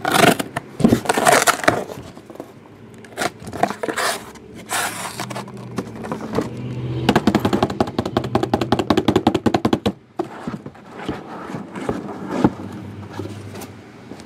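Scrapes and knocks of cardboard card boxes being handled, with a fast stuttering rattle lasting about three seconds in the middle.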